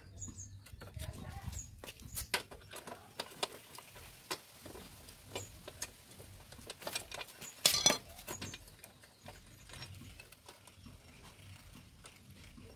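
Irregular metal clicks, taps and scrapes of a hand tool working the rear chain adjuster and axle end of a motorcycle swingarm, with a louder clatter a little past the middle.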